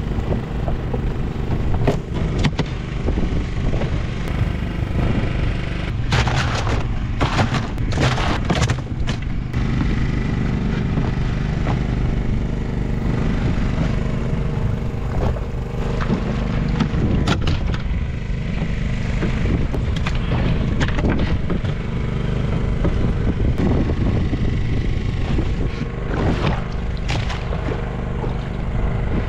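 Fishing boat's engine running steadily with a low, even drone, with irregular knocks and clicks on top, a dense cluster of them about six to ten seconds in.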